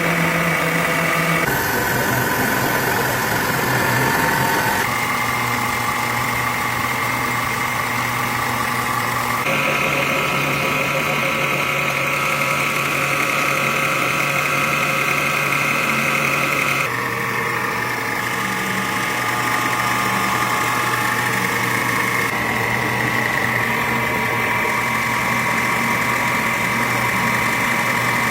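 Factory machinery running with a steady hum made of several fixed tones; the mix of tones changes abruptly five times, shifting between different machines.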